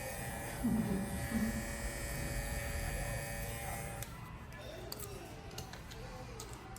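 Babyliss Pro FX cordless hair clipper running steadily, then switched off about four seconds in.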